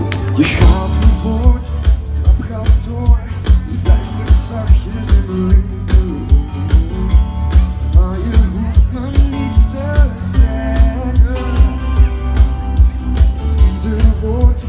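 Live pop song played loud through a stage PA, with a steady dance beat of about two kick-drum thumps a second under melodic lines. A bright sweep sounds right at the start.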